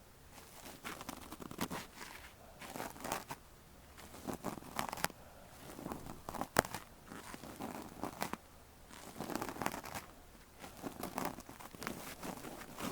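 Ear-cleaning tool scraping and rubbing in an ear close to the microphone: irregular scratchy, crackling strokes about a second apart, with one sharp click about six and a half seconds in.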